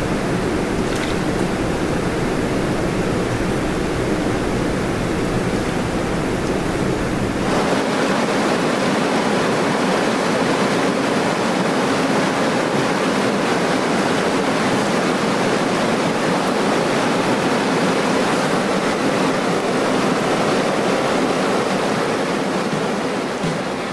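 Steady rush of the Kupa river's water flowing fast over rocks. About seven seconds in the sound changes abruptly, losing its deep low rumble and becoming a brighter rush of white water.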